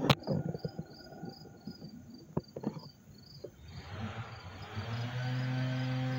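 Insect chirping in short high pulses, about four a second, after a sharp click at the start. About four seconds in, a steady low mechanical hum swells in and covers it.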